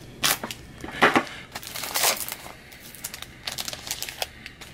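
Foil wrapper of a trading-card pack crinkling and being torn open by hand, in several short bursts of rustling, the longest about two seconds in.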